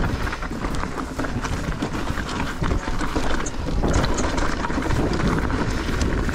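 Electric mountain bike rattling and clattering over rough dirt trail on a fast descent, tyres rumbling with a constant run of small knocks and jolts.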